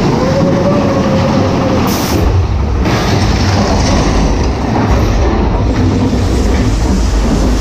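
Big Thunder Mountain Railroad's steel mine-train coaster cars running along the track, a steady loud rattling rumble. A steady squeal for the first couple of seconds, and a short hiss about two seconds in.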